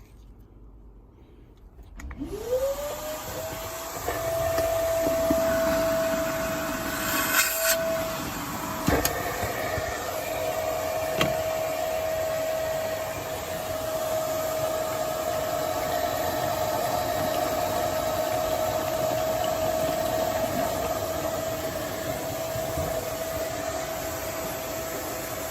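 HVAC vacuum pump motor switching on about two seconds in. Its whine climbs quickly to speed, then runs at a steady pitch, with a couple of sharp clicks along the way.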